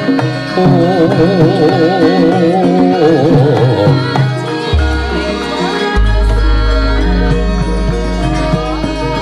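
Javanese gamelan music with a sinden, a female vocalist, singing a long ornamented line with wide vibrato through a microphone. About halfway through, deep sustained low gong tones come in under the ensemble.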